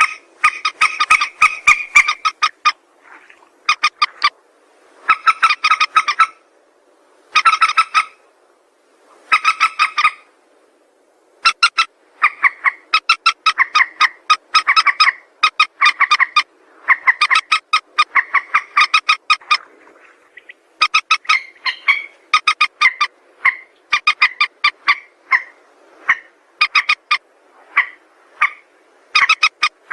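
Mandar sawah (a rail) calling: a loud series of rapid pulsed notes in bursts about a second long. The bursts are separated by short pauses at first and come almost back to back from about twelve seconds in.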